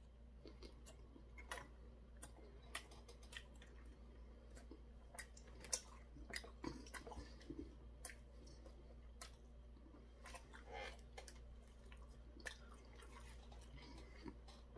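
Faint chewing of battered fried food, with scattered soft crunches and mouth clicks.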